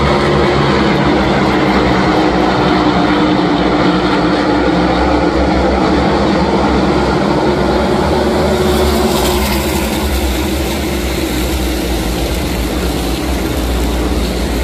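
A field of NASCAR Cup Series stock cars racing past at speed, their pushrod V8 engines running flat out in a loud, steady drone of many engines together. The noise grows brighter and rushier about two-thirds of the way through.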